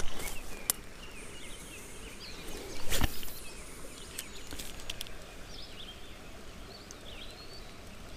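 Small birds chirping over a steady outdoor hiss, with one brief, loud handling noise about three seconds in.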